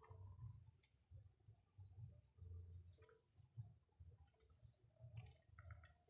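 Faint outdoor ambience: scattered short, high chirps of insects or small birds over an uneven low rumble.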